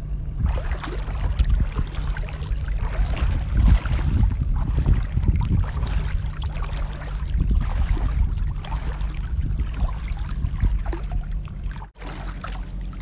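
A small boat motor running steadily with a low hum, under loud rushing water and splashing. It cuts out briefly near the end.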